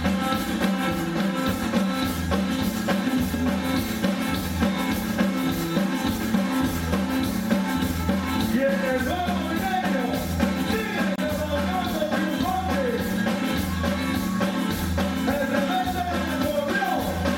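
Live cumbia band playing, with a steady repeating bass beat and singing; a wavering melody line comes in about halfway through.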